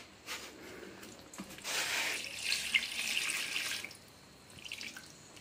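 Water poured from a steel pot into a large steel basin of rice-flour batter, splashing for about two seconds in the middle.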